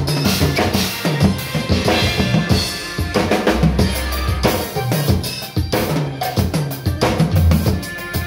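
Acoustic drum kit played busily, with rapid bass drum, snare and cymbal hits, over a recorded song whose bass line sounds underneath.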